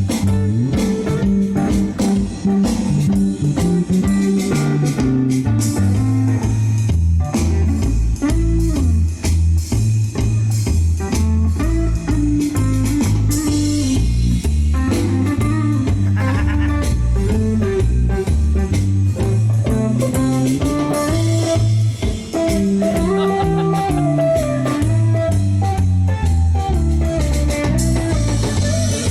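Live band playing a blues instrumental: guitar lead lines over a bass line and drum kit, with no singing.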